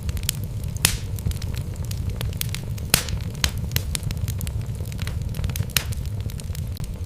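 Wood fire burning in a fireplace: a steady low rumble of flames with irregular sharp crackles and pops from the burning logs, a few louder snaps among them.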